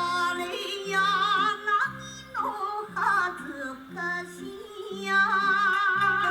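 Japanese enka song played from a vinyl record: a woman singing sustained notes with a wide vibrato over instrumental accompaniment with a repeating low bass figure.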